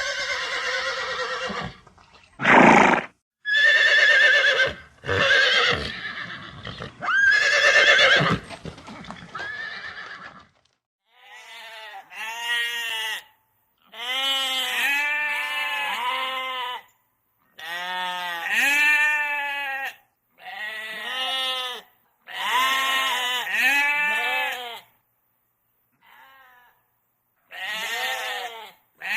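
Farm animal calls. First come several harsh, noisy calls over about ten seconds, then a run of about seven quavering bleats, each one to three seconds long with short gaps between them.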